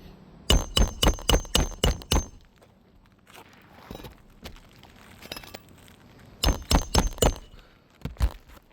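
Hammer driving a roofing nail into a replacement asphalt shingle: a quick run of about seven ringing metal-on-metal strikes, then after a pause a second run of about five, and two single strikes near the end.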